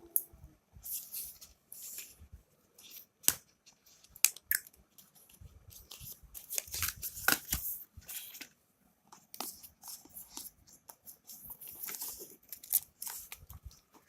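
Smartphone box packaging being handled and torn open: irregular crinkling and tearing with sharp clicks and taps, busiest about halfway through.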